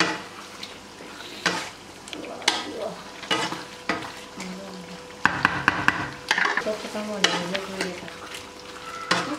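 Beef karahi frying and sizzling in its ghee while a cooking spoon stirs whole dried red chillies through the gravy, scraping and knocking against the karahi in irregular strokes, with a quicker run of clinks about five to six seconds in.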